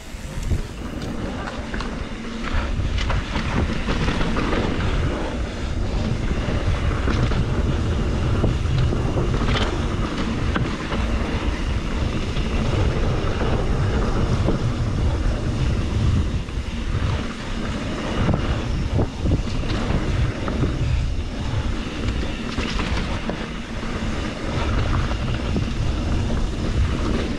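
Wind buffeting the microphone while a 2021 Trek Slash 7 mountain bike rides down a dirt flow trail, with tyre noise and frequent knocks and rattles from the bike over bumps. The noise builds about two seconds in as the bike picks up speed.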